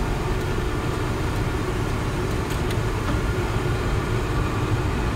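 Steady low drone of a Case IH axial-flow combine's engine and threshing machinery, heard from inside the cab during harvest, with a few faint ticks about halfway through.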